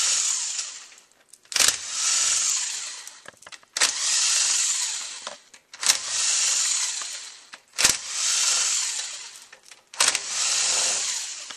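Cordless drill/driver with a T30 Torx bit backing bolts out of a 722.6 automatic transmission's valve body, one bolt after another. A sharp click is followed by a second or so of high motor whirring that fades out, and this repeats about every two seconds.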